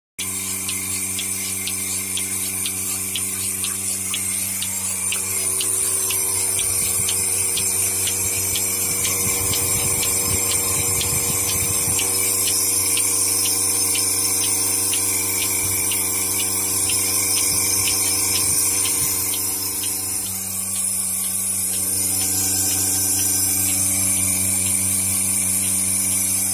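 Bereket portable milking machine running while milking a cow: the electric motor and vacuum pump hum steadily, with an even, regular ticking from the pulsator.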